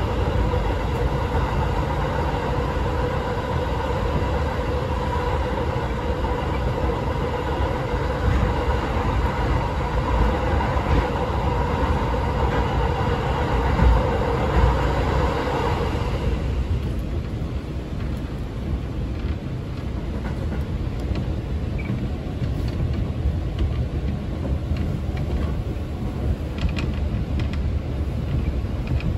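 Electric commuter train running on the rails, a continuous low rumble with a steady whine on top; about halfway through the whine cuts off and only the rumble of the running gear goes on, with a few faint ticks.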